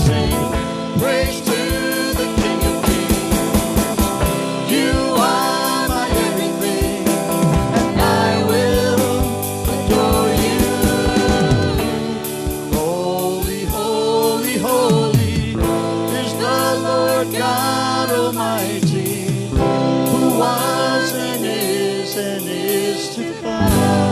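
Live gospel worship music: singers over a band, with sustained chords and a steady beat.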